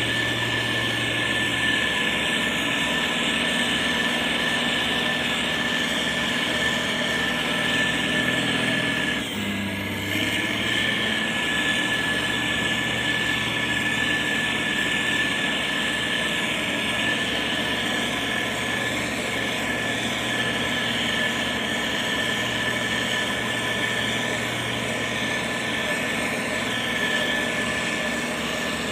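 Yellow motor grader's diesel engine running steadily, with a thin high whine alongside. About nine seconds in the engine note briefly dips and shifts, then settles back.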